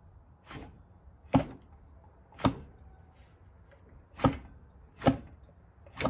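About six short, sharp clicks at uneven intervals as the McCulloch chainsaw's engine is turned over by hand to check for ignition spark. No spark comes on these tries, a sign of an ignition fault.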